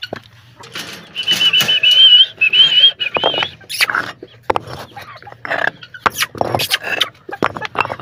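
Loose bricks knocking and scraping as they are pulled from a hole in a hen house wall to let the hens out. A wavering, warbling whistle sounds about a second in and lasts about two seconds.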